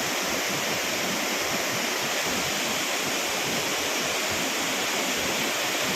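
Shifen Waterfall's water falling, a steady, even rush with no change in level.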